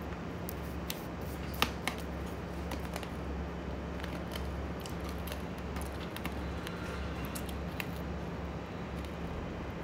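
A person chewing a small piece of red fruit: a scattered run of sharp crunching clicks, the loudest about one and a half seconds in, over a steady low hum.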